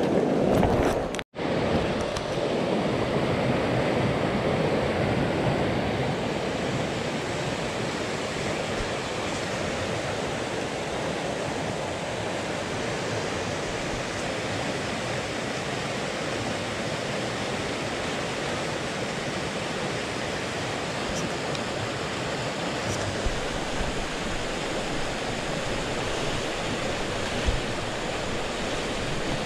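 Shallow rocky creek rushing steadily over stones and through a riffle, with a momentary dropout about a second in.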